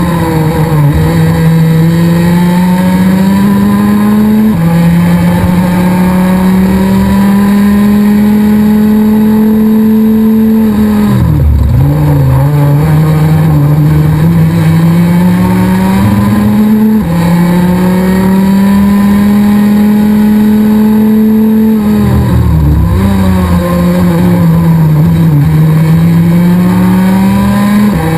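Rotax Max DD2 125 cc two-stroke kart engine at racing speed, heard on board with wind rush. Its pitch climbs steadily along the straights, drops sharply twice as the two-speed gearbox shifts up, and falls away and picks up again three times as the kart slows for corners.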